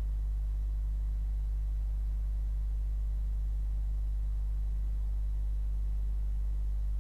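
A steady low hum with faint higher overtones, unchanging throughout. No crash impact or engine sounds stand out above it.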